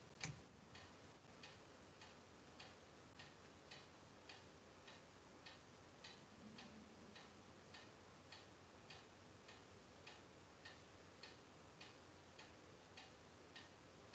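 Near silence broken by a faint, regular ticking, a little under two ticks a second, with one slightly louder click right at the start.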